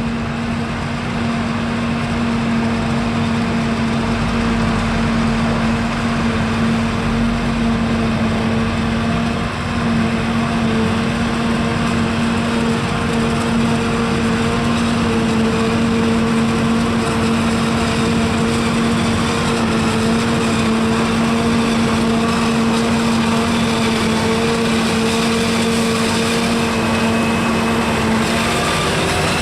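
Forage harvester at work in maize: steady engine and machinery drone with a constant whine.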